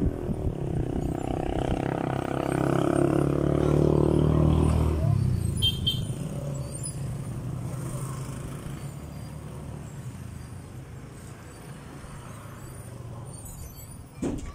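A motor vehicle passing by, its engine note swelling over the first few seconds and fading out after about five seconds, leaving a fainter steady traffic hum. A short knock near the end.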